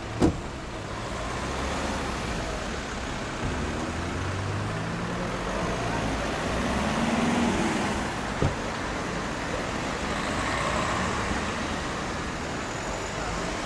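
Car engines and tyres as several cars pull out and drive past, one engine rising in pitch as it speeds up around the middle. There is a sharp knock just after the start and another about eight seconds in.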